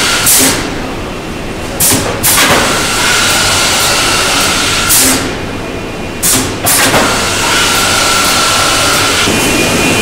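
Pneumatic multi-spindle boring machine drilling chipboard panels in two cycles. Each cycle brings short, sharp hisses, about half a second and two seconds in, then again around five and six and a half seconds in. Under them runs the steady drone and thin whine of running factory machinery.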